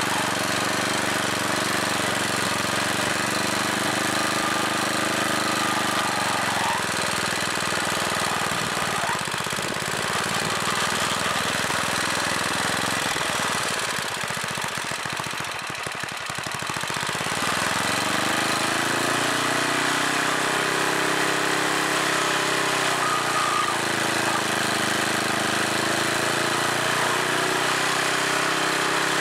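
Small snowblower engine mounted on a rototiller, running. Its speed sags over several seconds, bottoms out around the middle, then picks back up and wavers up and down.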